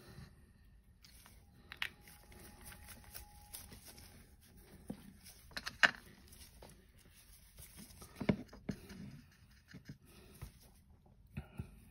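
Quiet handling noises from miniature painting: scattered soft clicks and taps as a dropper bottle of wash, a sponge and a paintbrush are worked against a metal paint palette.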